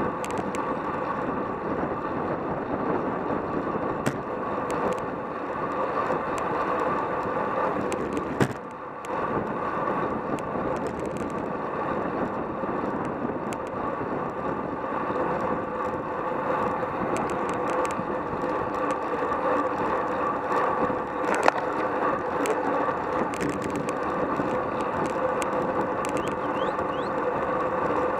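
Wind rushing over a bike-mounted camera and road-bike tyres humming on asphalt at about 26 mph in a racing pack, a steady noise with a constant hum through it. A few sharp clicks stand out, the clearest about eight and a half seconds in and again around twenty-one seconds.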